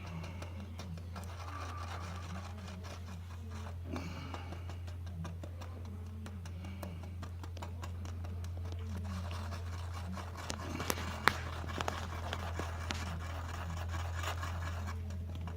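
Two-part epoxy being stirred and scraped on a mixing surface, small scratchy scrapes and ticks that get busier over the last few seconds, over a steady low electrical hum.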